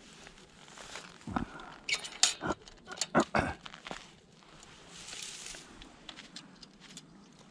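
Spring-loaded bird launcher being loaded with a pigeon and cocked: a quick series of sharp metal clacks and knocks about one to three and a half seconds in, then softer rustling in dry grass.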